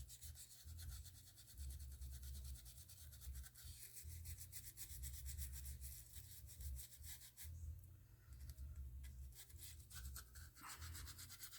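Faint, rapid scrubbing and scratching as old adhesive residue is cleaned out of an iPhone 13's frame with isopropyl alcohol, a quick run of small strokes that thins out about two thirds of the way through.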